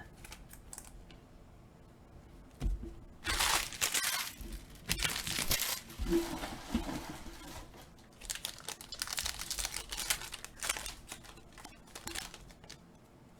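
Trading-card pack wrapper being torn open and crinkled, in several bursts of rustling.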